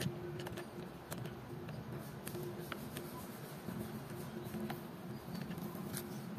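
Scattered light clicks and ticks of a screwdriver working the screw under the plastic right handlebar switch housing of a Yamaha NMAX scooter, over a steady low background hum.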